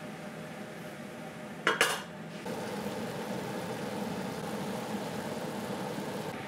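Frying pan of clams, peas and greens bubbling as the clams steam open. About two seconds in, a pan lid clanks twice, the loudest sound; after that the bubbling and sizzling are louder.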